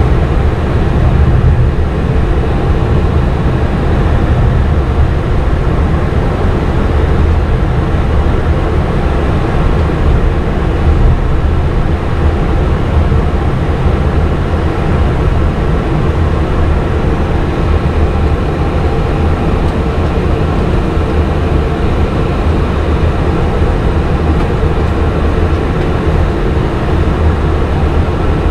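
Steady flight-deck noise of a Boeing 737 MAX 8 on the ground, its CFM LEAP-1B engines running at low power. The sound is a deep rumble with several steady tones over it, neither rising nor falling.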